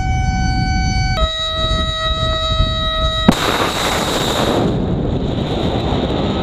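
A steady, high whistling tone with overtones sounds over a low wind-like rumble, dropping in pitch about a second in. About three seconds in comes a sharp crack, then the loud rushing roar of an SM-2 missile's solid rocket motor as it blasts out of the destroyer's vertical launch system. The roar eases after a second or so into a steady rushing.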